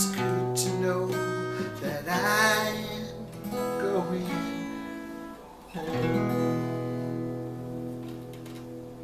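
Acoustic guitar playing the closing chords of a folk song. A last chord strummed about six seconds in rings out and slowly fades.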